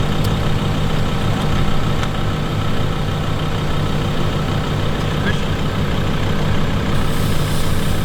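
Four-wheel-drive vehicle's engine running steadily with a constant low hum.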